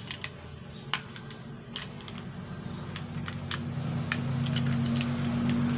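Small scattered clicks and clacks of an airsoft Glock 35 pistol being handled as its slide is fitted back onto the frame. A low steady hum builds up from about halfway through and becomes the loudest sound.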